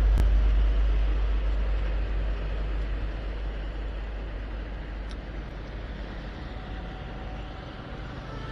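Wind rumble on the microphone and road noise from a moving vehicle, fading steadily as it slows down.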